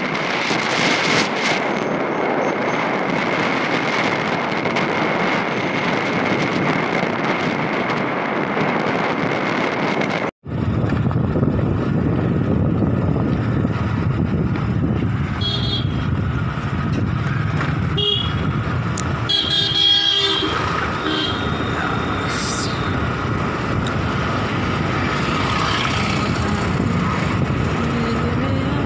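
Steady wind and road noise on a moving two-wheeler. After a brief dropout about a third of the way in, several short horn toots sound about halfway through.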